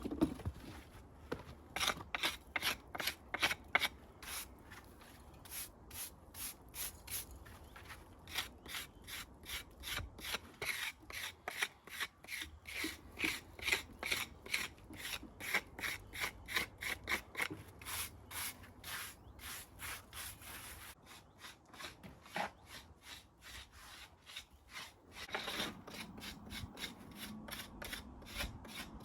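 A hand tool scraping on masonry in quick repeated strokes, about three a second, with a few pauses.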